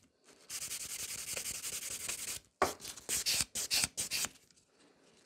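Hand nail file rubbing over a sculpted fiber gel nail to smooth it: a run of fast back-and-forth strokes, then a few slower separate strokes, stopping about four seconds in.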